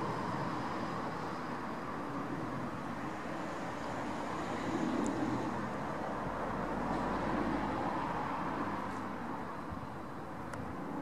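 Distant jet roar of a climbing Boeing 777's twin turbofan engines: a steady rumble that swells a little mid-way and eases slightly near the end.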